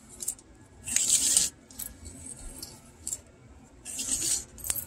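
Close handling of a vintage talking G.I. Joe's plastic voice-box mechanism and its pull cord: two short scraping rubs, about a second in and again near the end, with a few light clicks of small plastic parts.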